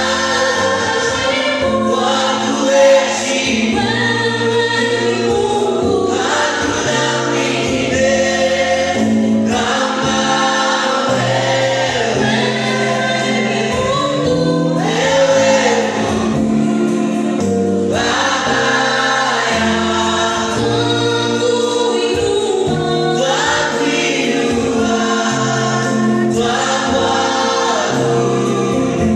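Church choir and congregation singing a gospel worship song with instrumental backing.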